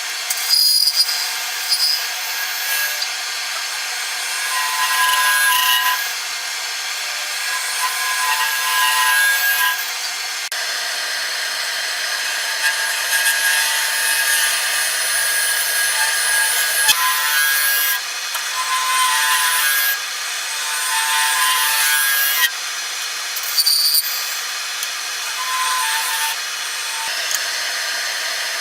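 Wood lathe turning a bowl: a tool rubbing and cutting against the spinning wood, a steady hiss with intermittent high whining tones that come and go as the tool bites, changing abruptly several times.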